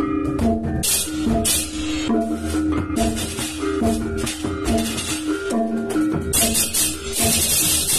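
Balinese baleganjur gamelan playing: melodic bossed gongs ringing held, stepping notes over kendang drums, with dense crashing of ceng-ceng cymbals that comes in repeated waves and is strongest near the end.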